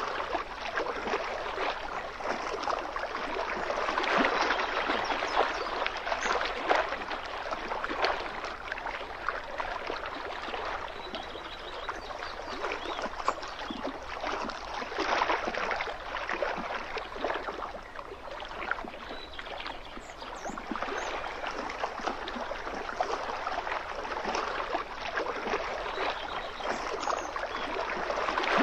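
Small lake waves lapping and splashing against the shoreline: a continuous wash of water that swells and eases irregularly.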